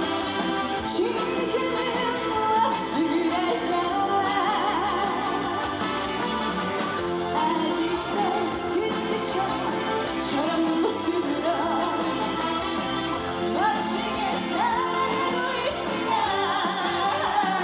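Trot music performed live: a sung melody carried over full band backing.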